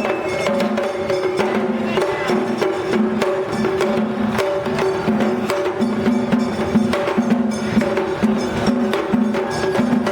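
Japanese festival float music (matsuri-bayashi): rapid drum and wooden clacking strikes over steady held tones.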